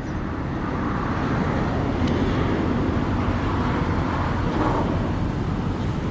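Steady engine and machinery noise with a deep rumble, holding at an even level.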